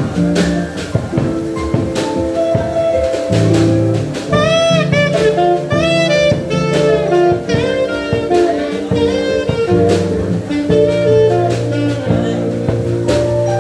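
Taiwanese-made alto saxophone with a DD Peng mouthpiece playing a jazz solo, unamplified in tone, over upright bass, keyboard and drums. A run of high, bending notes comes in the middle.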